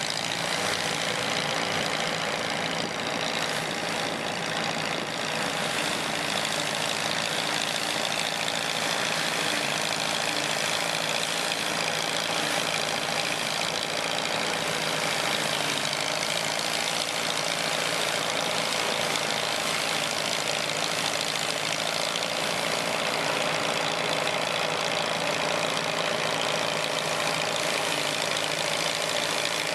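Combine harvester running steadily: its engine and threshing machinery make an unchanging mechanical drone.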